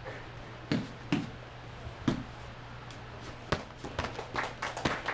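Slaps and thuds of padded sparring gloves and kicks landing on sparring gear: single sharp hits roughly a second apart, then a quicker flurry of hits near the end.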